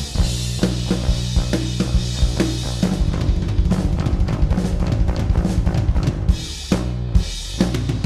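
A drum kit playing a busy groove over a bass line: kick and snare hits with cymbal wash on top. The drums and bass are run through a compressor plugin, the Acustica Audio AMBER 4 Ultra.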